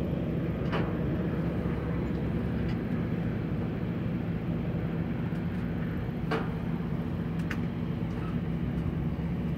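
Heavy diesel engines of working job-site equipment running steadily, a low even drone. A few faint sharp knocks come through it, about a second in and twice later on.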